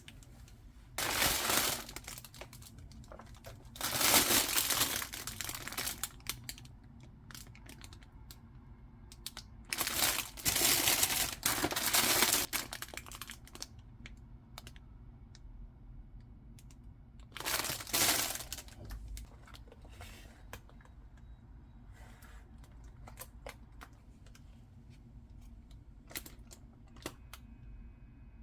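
Plastic packaging crinkling in four short bursts of a second or two each, with light clicks and knocks of handling between them.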